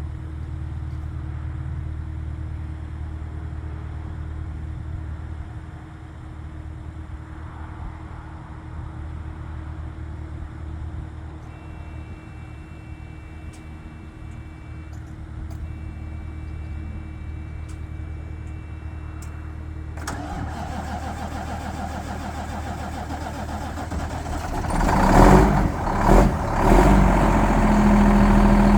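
Freightliner truck's diesel engine running steadily at idle; about twenty seconds in the sound changes and grows louder, with a few revs near the end before it settles into a louder, steady run.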